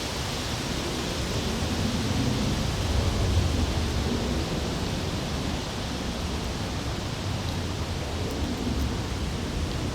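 Strong wind buffeting the nest camera's microphone: a steady rush with low rumbling gusts, heaviest about two to four seconds in.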